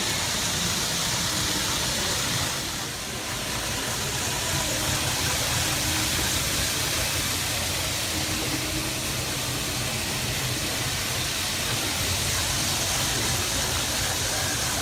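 N gauge model Shinkansen train running on a layout track: a steady rolling noise, dipping briefly about three seconds in.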